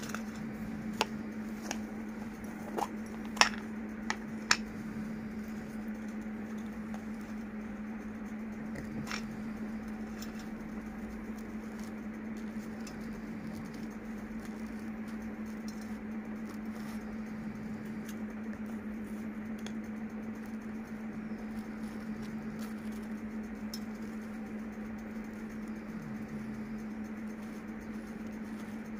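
Table knife scraping peanut butter across a slice of bread, a soft, scratchy rasp, with a few sharp clicks in the first five seconds and one more near nine seconds. A steady low hum runs underneath.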